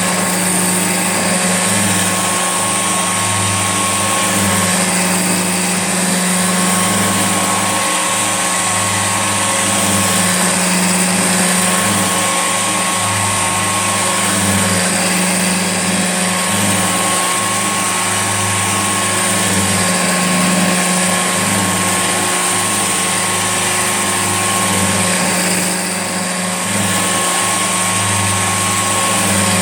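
Old Hoover Junior upright vacuum cleaner running steadily, its motor giving an even hum with a high hiss, dipping slightly for a moment near the end.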